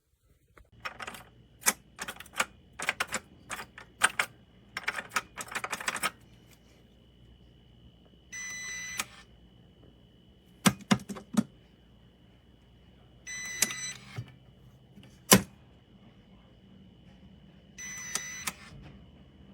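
Button clicks and electronic beeps from a biometric pistol safe's keypad and lock: a quick run of sharp clicks, then three short beeps about five seconds apart with single clicks between them, one of them loud.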